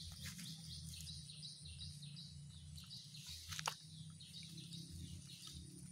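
Small birds chirping in quick repeated notes over a low steady hum, with one sharp tap about three and a half seconds in.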